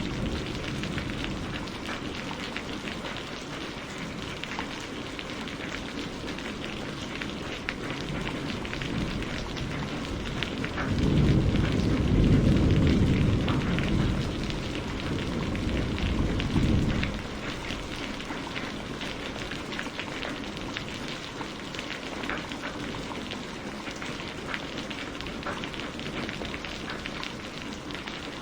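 Steady rain falling, a dense patter of drops hitting a surface. A deep low rumble swells about eleven seconds in and fades out about six seconds later.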